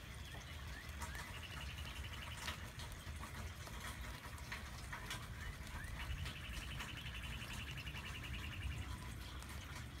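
Spring rain falling on a garden, with scattered drips ticking. A fast, even trill sounds twice, briefly about a second in and for nearly three seconds past the middle, among a few short chirps.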